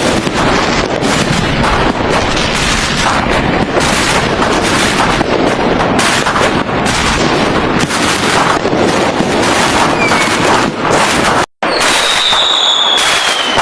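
A dense barrage of fireworks: rapid, overlapping bangs and crackling with no gaps. About two-thirds of the way in it cuts out for an instant, then resumes, and a falling whistle sounds near the end.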